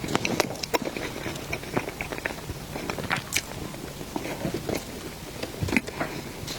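Close-up eating sounds of a person biting and chewing dessert, with many small irregular clicks and soft crackles.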